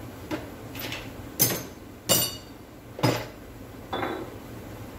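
Small metal tools and parts clinking and knocking as they are handled on a workbench: about six separate sharp clinks, some ringing briefly, the loudest a little over a second and about two seconds in.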